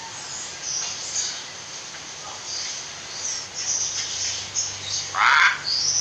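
Hill myna between its talking: faint high-pitched chirping, then one short harsh call about five seconds in.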